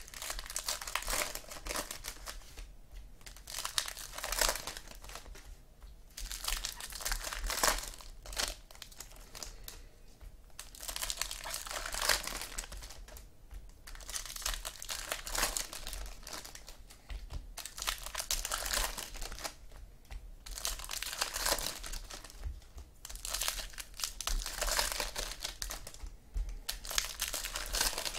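Foil wrappers of Topps Platinum football card packs crinkling and tearing as the packs are ripped open by hand, in repeated bursts of a few seconds with short lulls between.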